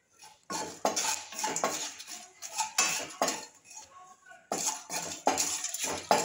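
Wooden spatula scraping and stirring whole spices and coriander powder as they dry-roast in a non-stick kadai. The scrapes of wood against the pan come in quick repeated strokes, starting about half a second in, with a short lull about halfway through.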